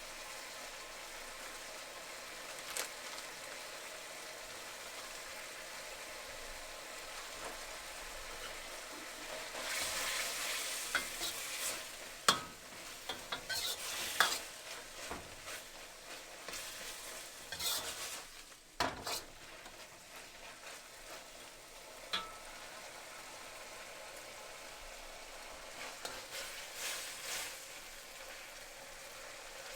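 Food sizzling as it fries in a pan, with a steady hiss throughout. In the middle it gets louder as the food is stirred, with sharp clicks and scrapes of a utensil against the pan, and there is another short bout of stirring near the end.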